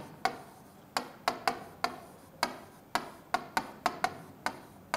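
Marker writing on a whiteboard: about a dozen sharp, uneven taps and clicks as the tip strikes the board with each stroke of the letters.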